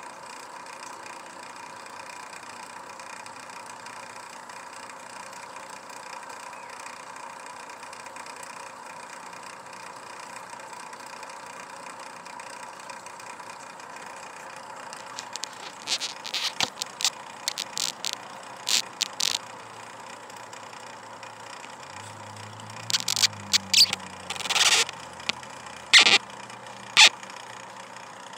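Steady quiet background hum, then in the second half a run of sharp clicks and knocks from a phone being handled and moved. A low drone comes in briefly near the end.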